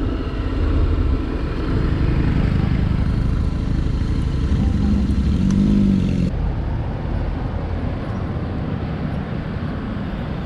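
Honda X-ADV 750 parallel-twin scooter running with wind and road noise as it rides and slows to pull over. About six seconds in the sound drops to a quieter, steadier running as the bike comes to a stop.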